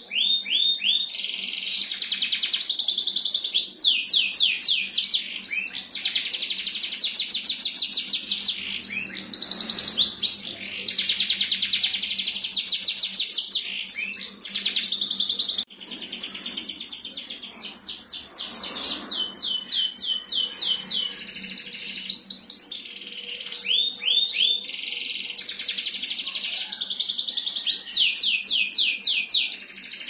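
Domestic canary singing a long, high-pitched song of fast trills and rolling runs of rapid repeated notes, with a brief break about halfway through.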